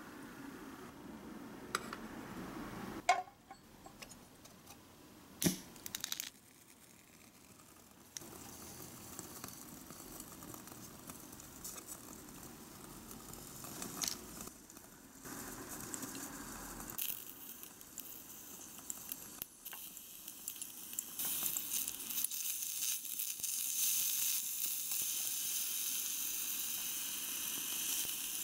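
A couple of sharp clinks of small ceramic dishes being handled, then sizzling in a tiny saucepan on a miniature stove. The sizzle grows louder in the last several seconds as chopped vegetables and shrimp go into the hot pan.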